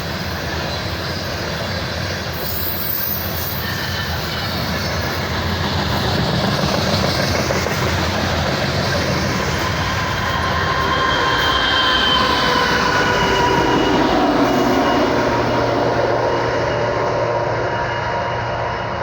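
Loaded coal train rolling past with a continuous rumble of wheels on rail. A thin wheel squeal rises in and out through the middle.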